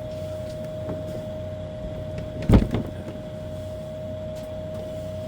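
A single sharp clunk about halfway through, as a part or connector of the light fixture is disconnected or set down on the work surface. Under it runs a steady high-pitched electrical hum.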